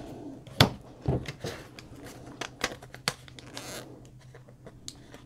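Clear photopolymer stamps being handled, peeled off and stuck onto an acrylic stamping block and a clear plastic stamp sheet: scattered light plastic clicks and taps, with a brief rustle about three and a half seconds in.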